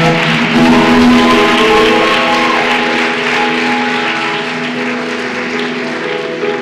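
Music of sustained held chords, with audience applause that rises about half a second in and slowly fades.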